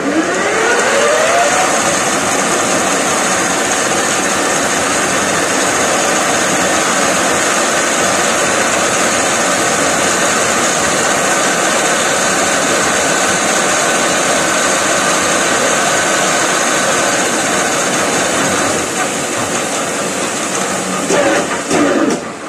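Metal lathe running under power: a rising whine as it comes up to speed at the start, then a steady machine whine with a high hiss. The sound changes and wavers near the end before dropping off.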